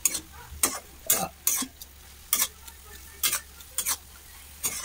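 Spatula scraping and stirring moringa leaves cooked in milk around a kadai, in short strokes about every half second, irregularly spaced, with a soft sizzle of the frying greens between strokes.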